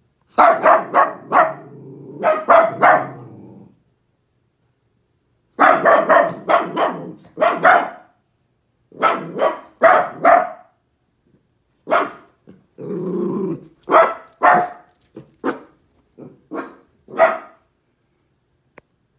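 Miniature dachshunds barking in quick runs of three or four barks, with short pauses between the runs, and a brief growl about two-thirds of the way through.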